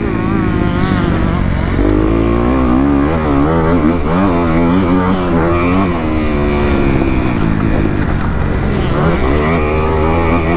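Kawasaki KX250 motocross bike's engine revving up and down over and over as the throttle is worked around the track.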